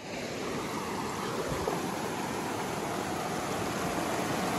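Shallow river water rushing steadily over rocks.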